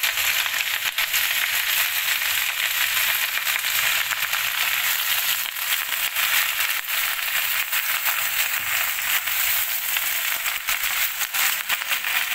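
Wet leafy greens sizzling and crackling loudly in hot garlic oil in a wok, just after being tipped in to stir-fry.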